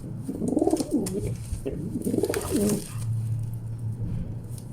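Male rock pigeon cooing: two rolling, warbling coos, each about a second long, followed by a lower steady hum.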